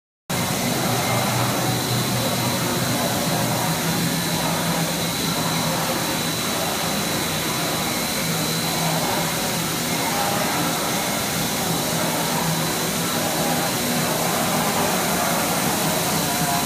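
Double-stage plastic strand pelletizing line running on hard plastic: steady loud machine noise of motors and extruder, with a low hum and a steady high whine. It starts abruptly a moment in.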